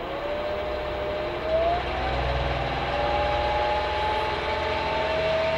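Keda 56-63 195Kv brushless outrunner motor, driven by its ESC, spinning up as the throttle is opened on a servo tester. It runs as a whine whose pitch jumps up about one and a half seconds in and then keeps climbing slowly, over a low hum.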